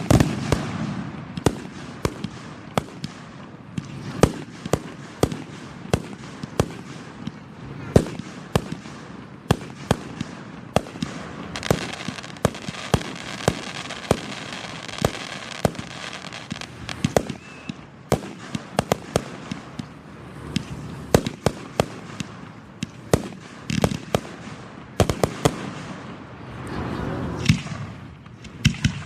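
Aerial fireworks display heard close to the launch site: sharp bangs of shells bursting one after another, often several a second, over a steady crackle.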